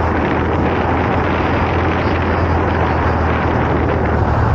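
Wind rushing over the camera microphone on a moving motorcycle, with the bike's engine running steadily as a low hum underneath.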